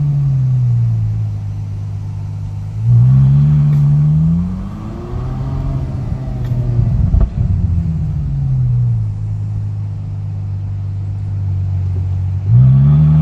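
Ferrari engine idling and being revved: three times the pitch climbs quickly, holds briefly, then falls back to idle. A few faint clicks show up in the middle; a clicking noise is what the owner is chasing.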